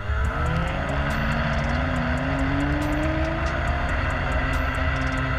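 Polaris Titan's 800 cc two-stroke Cleanfire engine at full throttle on a launch from standstill: the revs shoot up in the first half second, then hold steady and high while a lower whine rises slowly as the sled gathers speed.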